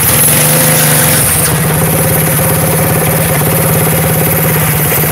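Mini bike's Predator 212 Hemi single-cylinder engine running steadily under throttle, with a constant hiss, as the worn rear tire spins on concrete in a burnout.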